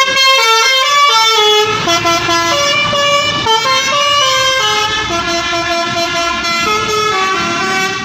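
Bus 'telolet' multi-tone air horn playing a tune of quick stepping notes without a break, with engine noise underneath from about two seconds in to about three and a half.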